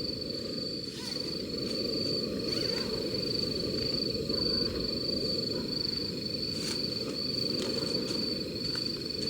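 An insect trilling in a steady high-pitched pulsing pattern, over a low even rushing noise, with a few faint clicks.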